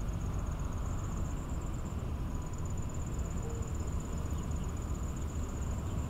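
Outdoor ambience: a steady low rumble, with a high, thin insect trill pulsing continuously over it and dropping out briefly about two seconds in.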